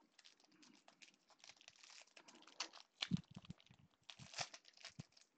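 Faint crinkling and tearing of a foil baseball-card pack wrapper being handled and torn open by gloved hands: a run of irregular crackles, with sharper rips about three seconds in and again near the end.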